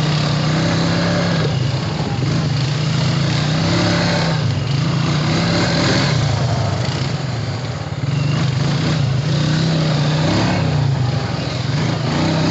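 Honda Rancher ATV engine running while riding, its low drone rising and falling a little in pitch with the throttle, over a broad rushing hiss of wind and trail noise.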